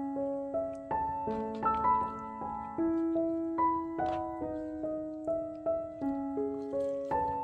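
Background piano music: a gentle melody of held notes, several sounding together, moving on every half second or so.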